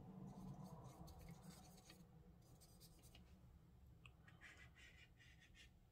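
Near silence with faint, irregular scratching of a small paintbrush: it works watercolor in a pan tray, then strokes on watercolor paper.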